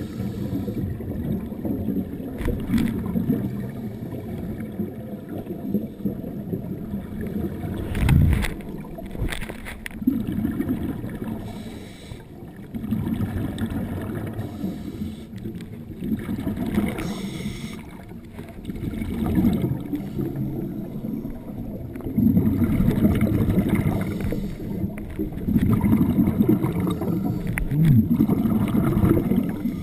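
Scuba regulator breathing heard through an underwater camera housing: low rumbling surges of exhaled bubbles every few seconds with quieter breaks for the inhale. A couple of short knocks about eight seconds in.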